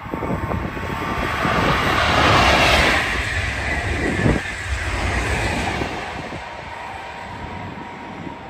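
High-speed train passing at speed: a rushing noise that swells to its loudest about two to three seconds in, then fades away over the next few seconds.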